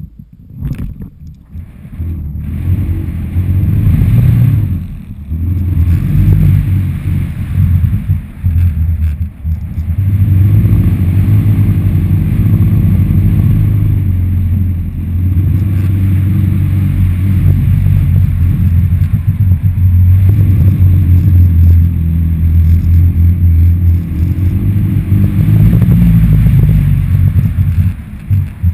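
Wind buffeting the microphone of a GoPro Hero HD 2 carried on a stunt kite in flight. A few knocks at the start, then a loud, steady low rumble from about two seconds in.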